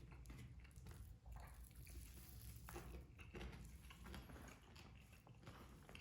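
A person chewing and biting food close to the microphone: soft, irregular mouth clicks and smacks over a faint low room hum.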